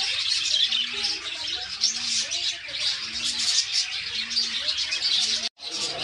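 Dense, continuous chirping and chatter from many small cage birds, budgerigars among them, with a low dove-like coo repeating about once a second. The sound drops out for an instant near the end.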